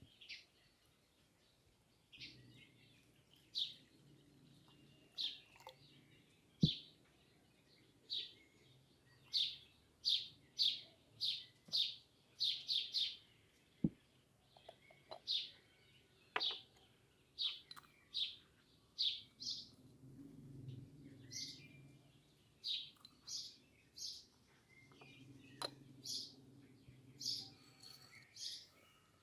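Small birds chirping: short, high chirps repeated about once or twice a second, with a faint low hum that comes and goes and a couple of sharp clicks.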